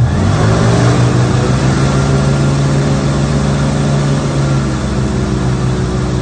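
Safari bus engine revving up at the start, then running at a steady pitch as the bus drives along, over a steady rushing noise.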